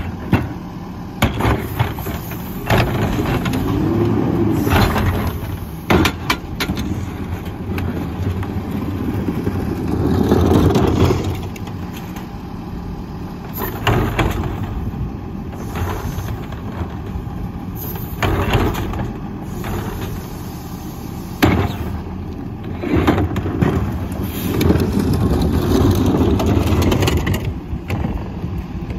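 Split-body rear-loader garbage truck's diesel engine running, speeding up several times, while plastic carts knock and bang against the rear hopper as they are tipped by hand.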